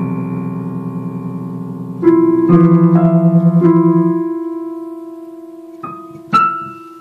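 A cat walking across a piano's keys, its paws pressing down random notes that ring on and fade away. New notes sound about two seconds in and a few more follow, then a louder, sharper one near the end.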